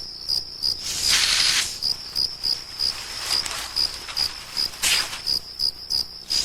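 Hog-nosed snake giving two hissing bursts, each about half a second long, a defensive bluff imitating a rattlesnake. Crickets chirp steadily underneath, about three chirps a second.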